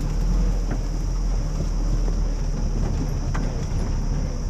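Off-road jeep driving along a rough track: a steady low rumble of engine and ride, with wind on the microphone and a few light knocks.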